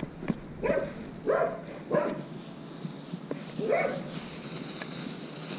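Belgian Malinois giving four short barks over about three seconds, close to the microphone. A steady hiss comes in near the end.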